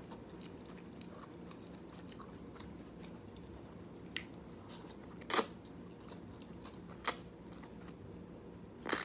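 Close-miked chewing of jjajangmyeon (thick noodles in black bean sauce), with a few short, sharp wet smacks of the mouth about four, five and a half, seven and nine seconds in.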